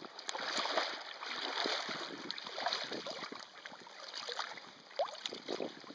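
Water splashing and sloshing against the side of a small boat in choppy water, in irregular bursts.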